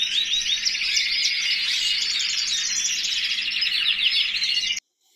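Many small cage birds chirping and singing over one another in an aviary, in a dense continuous chorus of high twitters and trills that cuts off suddenly just before the end.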